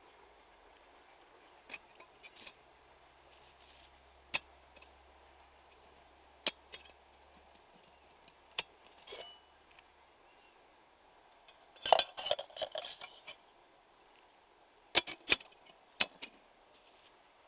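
Aluminium camping kettle being handled: light metal clicks and clinks from its lid and folding lid knob. The clicks are scattered at first, then come as a flurry of clinks about twelve seconds in and three sharp clicks near the end.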